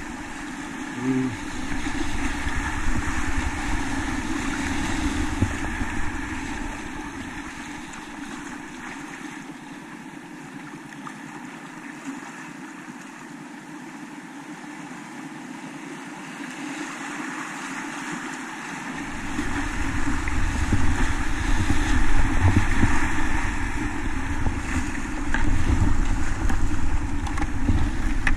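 Fast whitewater river rushing and splashing around a kayak, heard close up from the boat, with wind buffeting the microphone. The low buffeting drops away for several seconds in the middle and comes back louder, with the splashing, over the last third.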